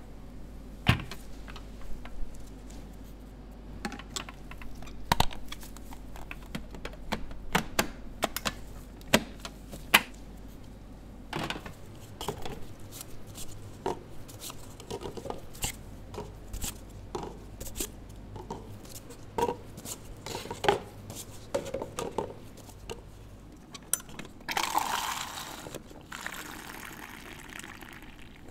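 Scattered knocks and clatter of a stainless steel airpot and paper cups being handled. Near the end, a few seconds of brewed coffee gushing from the airpot's pump spout into a paper cup.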